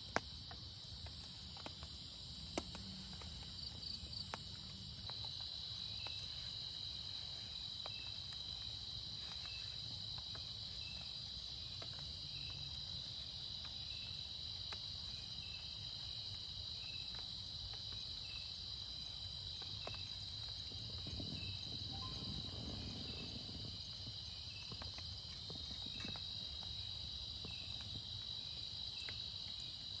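Steady high-pitched trilling chorus of insects, with a second, lower chirp repeating about once a second and a few scattered light clicks.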